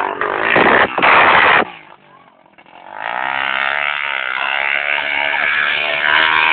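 A small motorcycle engine revs up about two and a half seconds in and is held at high revs. Before that, in the first second and a half, come loud rushing bursts of noise.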